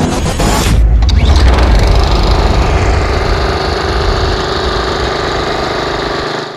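Small gasoline lawn mower engine running steadily. It comes in about a second in, is loudest early on, and fades out near the end.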